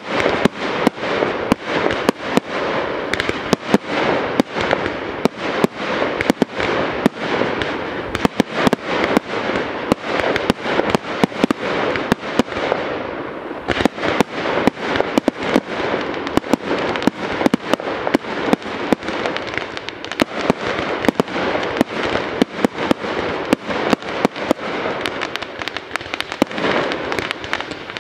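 Professional fireworks display firing without a break: many sharp bangs of launching and bursting shells, several a second, over a constant crackle and hiss of burning sparks.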